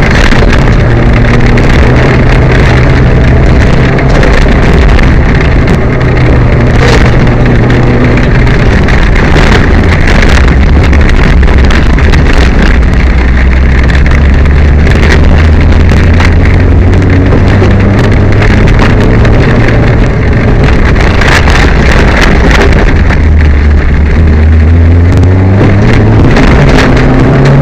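Peugeot 205 rally car's engine heard from inside the car at speed, loud and running hard, its pitch rising and falling with throttle and gear changes, with scattered knocks and rattles. The car is running with a misfire.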